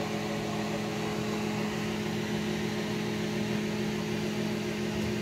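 Cison L4-175 inline four-cylinder four-stroke model engine, converted to glow ignition and running on nitro RC fuel, running steadily with an even, unchanging note.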